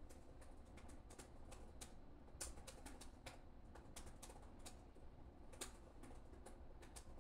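Faint, irregular light clicks, several a second, over a low steady hum.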